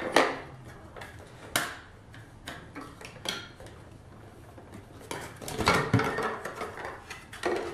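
Hard plastic clicks and clacks from an Aquatop CF300 canister filter as its side latch clips are flipped open and the head is worked loose from the canister. The clicks come singly at first, then a busier clatter about five to six seconds in as the head comes up.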